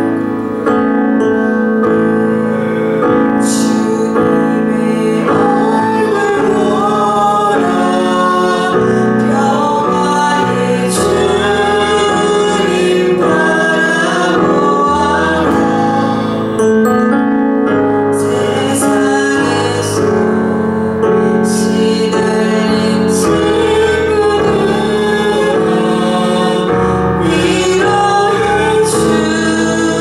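Church praise team singing a Korean worship song, female voices leading, over steady piano-keyboard accompaniment.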